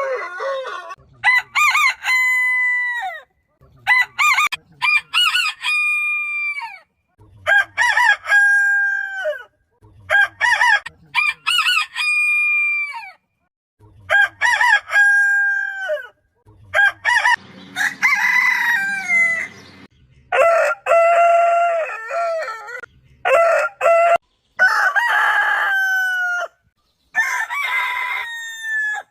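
Roosters crowing one after another, about a dozen crows. Each crow has a broken, stuttering start, then a long held note that drops away at the end, and the crows are separated by abrupt dead-silent gaps.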